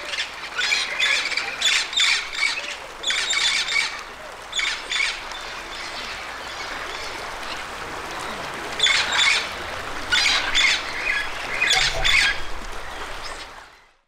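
Harsh parrot squawks in short clustered bursts, with a quieter spell in the middle; the sound fades out near the end.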